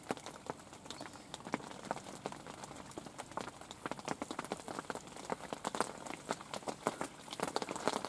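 Hail shower: hailstones striking the ground as many sharp, irregular ticks, growing denser toward the end.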